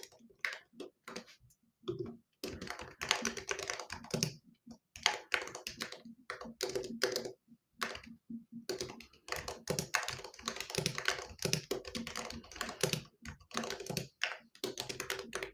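Typing on a computer keyboard: runs of quick keystrokes broken by a few short pauses.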